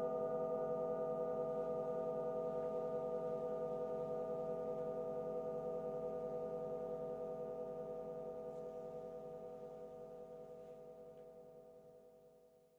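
A singing bowl ringing after a strike: several steady overtones with a slow, even pulsing waver, fading gradually until it dies away just before the end.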